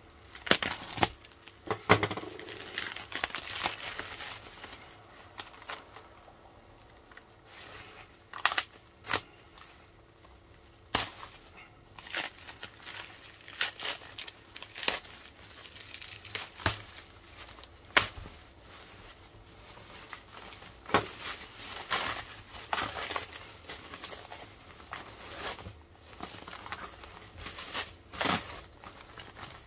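Plastic stretch-wrap film being pulled and peeled off a parcel by hand, crinkling and crackling in irregular bursts with occasional tearing.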